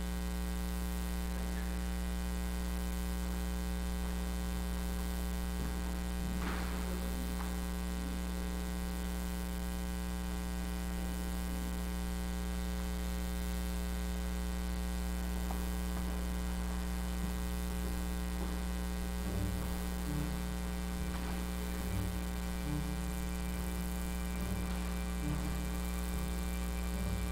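Steady electrical mains hum on the recording, with a faint knock about six seconds in and a few small handling sounds later on.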